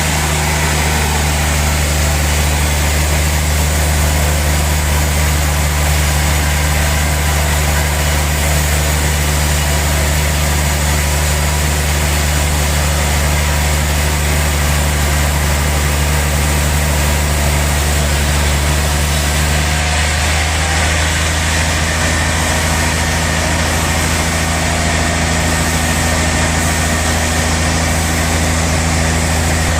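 Large sawmill saw machine running steadily with a constant low hum made of several fixed tones. About two-thirds of the way through, one of the tones drops away and the sound shifts slightly.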